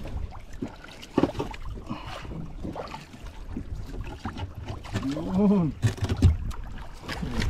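Knocks and bumps of handling against the hull of a small outrigger fishing boat, over wind buffeting the microphone. About five seconds in comes a short vocal sound that rises and falls in pitch.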